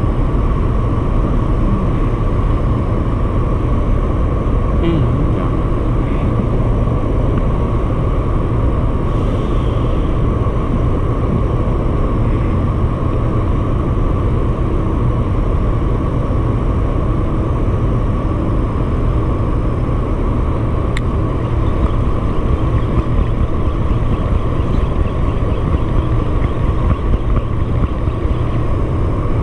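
A steady, loud machine drone with a constant hum over low rumbling noise, never letting up.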